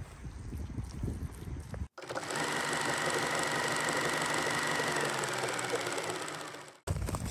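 A loud, fast, steady mechanical rattle, edited in as a sound effect, lasting about five seconds and starting and cutting off abruptly. It follows soft rustling from a dog moving through grass.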